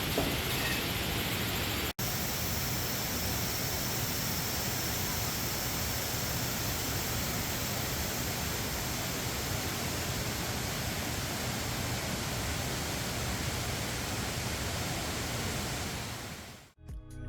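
Steady rushing of a mountain valley stream running high after heavy rain. It cuts out for an instant about two seconds in and fades out near the end.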